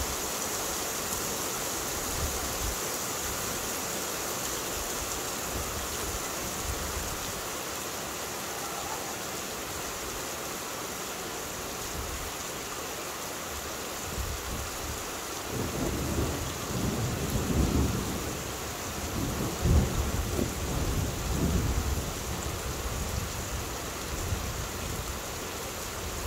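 Steady heavy rain hissing, with a long roll of thunder rumbling in about halfway through, swelling and fading in waves and loudest about three-quarters of the way in.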